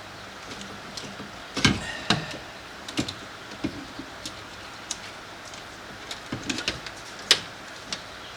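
Scattered sharp clicks and knocks of hand tools on hard metal and plastic parts, with louder knocks about two seconds in and near the end.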